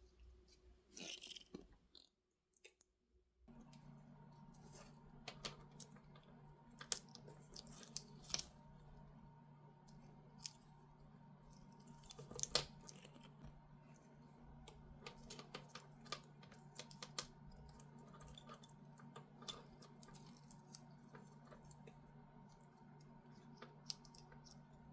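Faint, scattered clicks and taps of small drone parts and tools being handled on a workbench, over a steady low hum. The hum starts after a moment of dead silence about three and a half seconds in.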